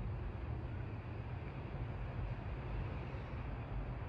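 Steady low background rumble with a fainter even hiss above it, unchanging throughout.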